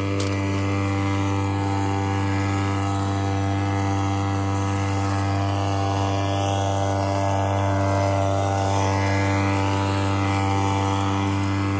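Small two-horsepower two-stroke outboard motor running at a steady speed, with a constant buzzing drone and no change in pitch.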